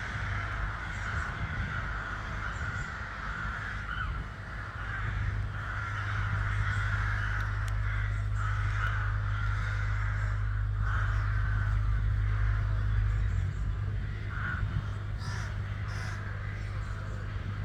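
Many corvids, which the recordist calls ravens, cawing over one another in the trees of their nesting site, with a steady low rumble underneath.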